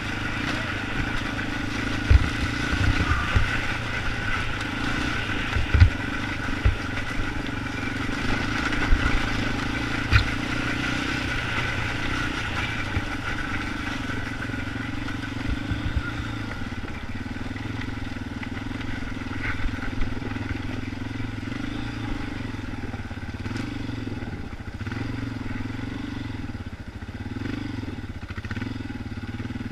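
Yamaha Raptor 250 ATV's single-cylinder four-stroke engine running at a fairly steady throttle over a woods trail. Several sharp knocks and rattles of the machine over rough ground come in the first ten seconds or so.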